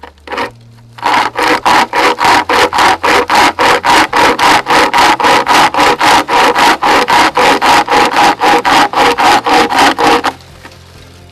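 Pocket chainsaw, a length of chainsaw chain with a handle at each end, pulled back and forth through a fallen tree branch, rasping on every stroke at a steady rate of about four strokes a second. The sawing starts about a second in and stops shortly before the end.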